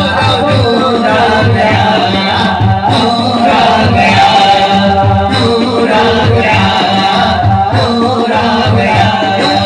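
A man's voice singing an Urdu naat, a devotional song in praise of the Prophet, into a microphone. It is carried over a steady low rhythmic beat.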